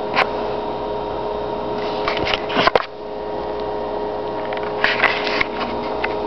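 Handling noise from a handheld camera: a few short clicks and rustles, about a quarter second in, a cluster around two to three seconds in, and another around five seconds in. Under them runs a steady hum with several fixed tones.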